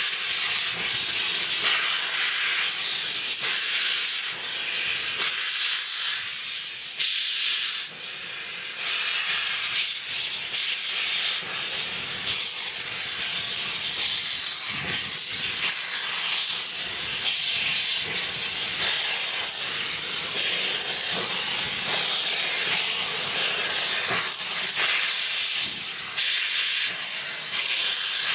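BR Standard Class 4 2-6-0 steam locomotive No. 76084 hissing loudly as it blows steam out around its cylinders, with its cylinder drain cocks open, with a few brief lulls in the first third.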